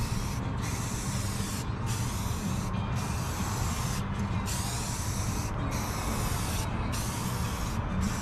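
Aerosol can of Rust-Oleum camo spray paint hissing in continuous passes, cut by short breaks about once a second as the nozzle is let go between strokes. A steady low rumble of wind on the microphone runs underneath.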